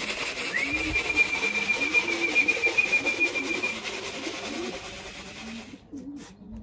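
One long, steady whistled note, about three seconds long, over grain being shaken and rattled in a feed tub, with racing pigeons cooing low. This is the fancier's call to bring young pigeons down from the roof to trap into the loft. The rattling stops about a second before the end.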